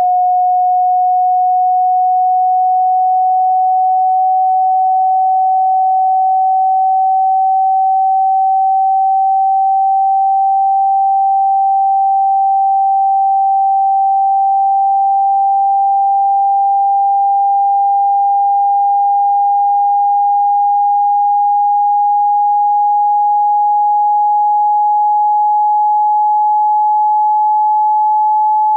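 A single pure electronic sine tone gliding slowly upward in pitch. It is a test-tone sweep played through a loudspeaker to vibrate the speaker cone and shake out water trapped in it.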